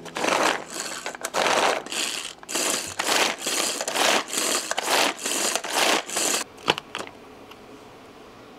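Hand-pulled mini food chopper mincing carrot: about a dozen quick pulls, roughly two a second, each a whirring rattle of blades and carrot pieces in the plastic bowl. The pulls stop about six and a half seconds in, followed by a short sharp click.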